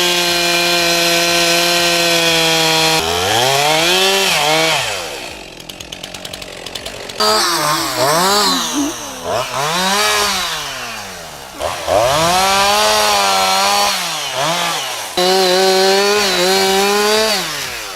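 Chainsaw running near full throttle, its pitch sagging and climbing again over and over as it cuts into wood and frees up. The sound breaks off and restarts abruptly several times, and about a third of the way through it drops for a moment to a slower, pulsing idle.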